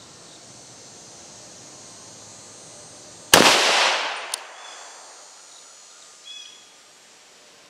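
A single rifle shot from an AR-15-style rifle in .300 Blackout, firing a supersonic 155-grain gas-checked cast-lead load, about three seconds in. The report echoes away over about a second and a half, with a short click about a second after the shot.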